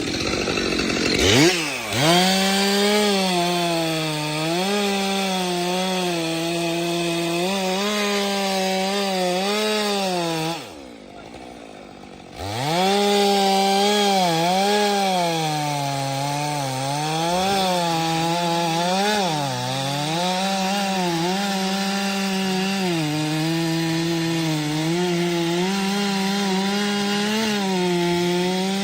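Stihl MS 462 C-M two-stroke chainsaw revving up about a second in and running at full throttle through firewood, its pitch sagging and recovering again and again as the chain loads up in the cut. About ten seconds in it drops off for a second or two, then revs up and cuts again.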